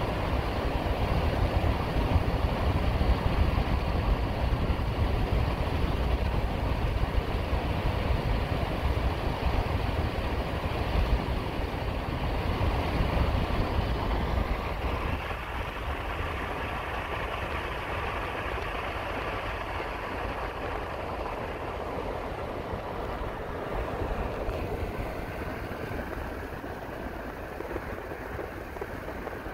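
Steady rumble of road and wind noise from a car being driven, louder in the first half and easing off about halfway through.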